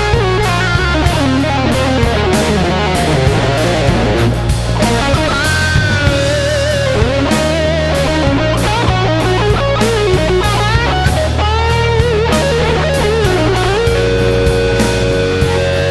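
Instrumental rock: a lead electric guitar plays a singing melody with wide vibrato and bends over bass guitar and drums, then holds a long sustained note near the end.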